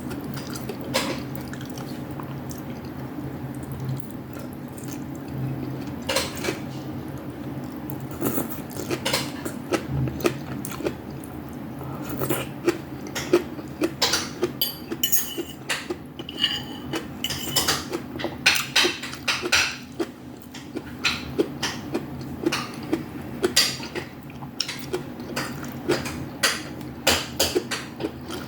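Metal cutlery clinking and scraping against a bowl or plate while eating: scattered sharp clicks at first, coming thick and fast through the second half, over a steady low hum.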